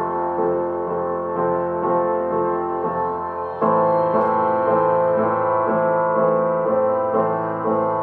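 Slow piano-led music playing; about three and a half seconds in it swells louder and fuller.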